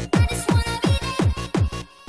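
Fast electronic dance backing track: a pounding kick drum at about four beats a second under a synth line. The beat drops away near the end.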